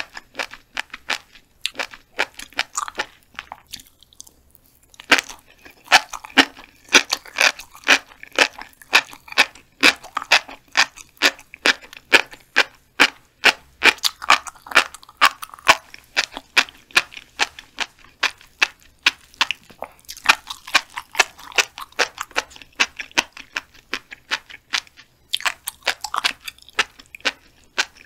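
Close-miked chewing of a mouthful of flying fish roe (tobiko): the tiny eggs pop and crunch between the teeth in a rapid run of crisp clicks, several a second, with a short pause about four seconds in.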